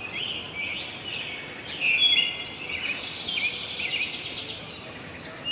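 Birds chirping and twittering in many short, high calls, a steady birdsong background.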